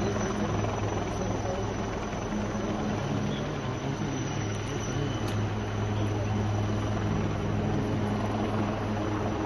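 Helicopter running steadily: a constant low hum of engine and rotor over a wash of noise.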